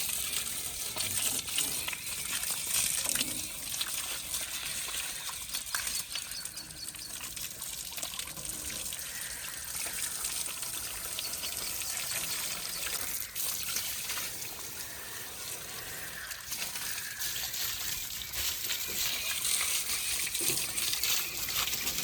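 Water running and splashing steadily as a tractor is washed.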